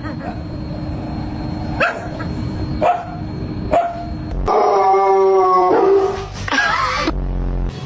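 A dog barks three short times, then gives one long howl lasting about a second and a half, followed by wavering yowls.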